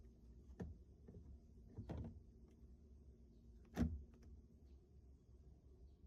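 A few light knocks and clicks of the cabin blower fan's plastic housing parts being fitted back together, the loudest a little under four seconds in, over a faint steady hum.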